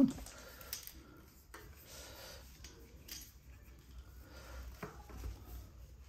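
Faint metallic clicks and handling rattles as a bicycle front wheel's quick-release skewer and hub are worked into the fork, a few sharp ticks standing out among quieter fiddling.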